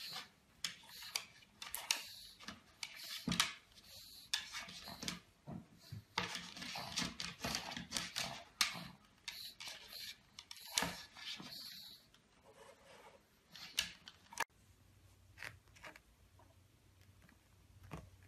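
A pug's claws scratching and tapping at a wooden tabletop as it paws at it: faint, irregular scrapes and taps that stop about 14 seconds in, followed by a quiet low hum.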